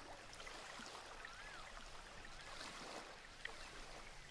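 Faint, steady flowing-water ambience, with two faint wavering tones in the middle.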